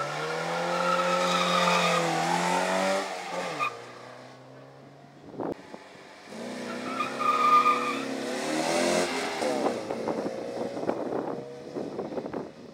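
Two Opel Manta rally cars launching one after the other from a standing start: the first engine is held at high revs with the tyres squealing for about three seconds before the note drops. About six seconds in, the second Manta revs up and launches the same way, then pulls away with a rougher, uneven sound.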